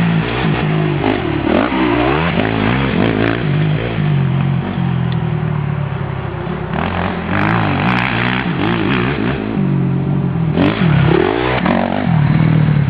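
Honda CRF250 single-cylinder four-stroke dirt bike riding round a motocross track, its engine note climbing and dropping back again and again as the rider works the throttle. It gets louder near the end as the bike passes close.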